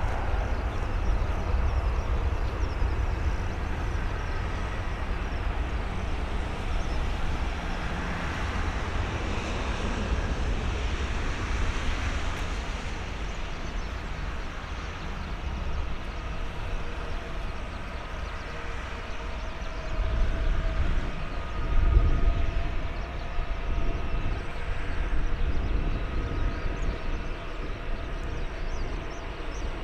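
Airbus A330-200's twin Rolls-Royce Trent 700 turbofan engines at takeoff thrust: a continuous deep rumble and roar as the jet rolls away down the runway and climbs out, slowly fading, with a louder low swell about two-thirds of the way through.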